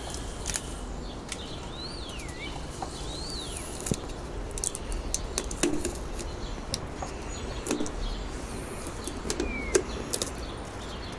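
Handling noise from a wooden stingless-bee hive box being uncovered: scattered clicks, knocks and rustles of the plastic cover and the wooden lid. A bird whistles twice in the background about two seconds in, with a short falling call near the end.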